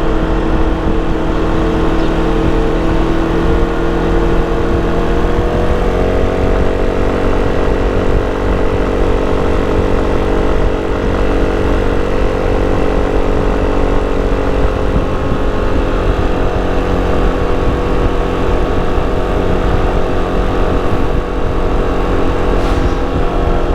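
Sym Cruisym 300 scooter's single-cylinder four-stroke engine and stock exhaust while riding. The engine note rises about five seconds in, holds steady, then eases down slightly a little past the middle, over a steady low rumble.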